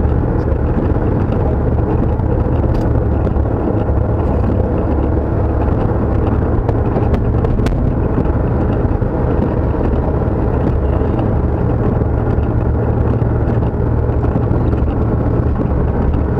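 Steady drone of a Dodge Dakota pickup driving on a wet road, heard inside the cab: low engine and road noise with tyre hiss from the wet pavement.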